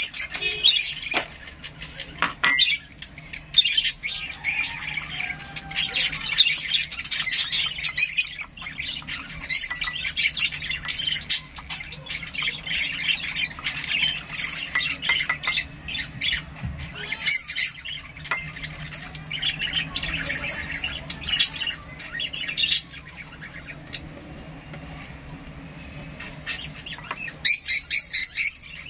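Small pet bird calling with rapid, shrill chirps and squawks, nearly nonstop, falling quieter for a few seconds near the end before another loud burst of calls.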